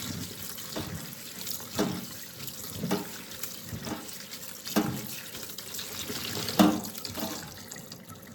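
Cold tap water running into a sink over freshly cooked glass noodles being rinsed by hand, with several louder splashing moments along the way. The cold rinse is the step that makes the noodles chewy.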